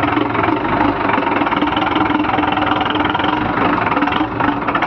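Diesel tractor engine running at a steady speed through a replaced exhaust silencer, a tall vertical pipe, with a loud, rapid, even firing beat.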